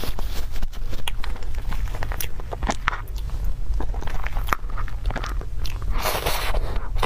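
Close-up eating sounds of a whipped-cream cupcake: wet mouth clicks and chewing, with small clicks of a spoon in a plastic cup, and a louder, longer wet bite of cream about six seconds in.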